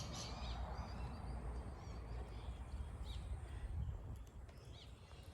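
Birds calling in short, high chirps every second or so over a steady low rumble.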